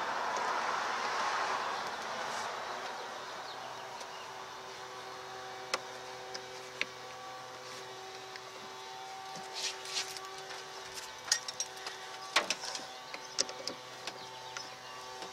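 Scattered small clicks and taps of a screwdriver working a plastic wiring connector on the engine computer, bunched mostly in the second half, over a faint steady hum. A broad rushing noise swells and fades in the first couple of seconds.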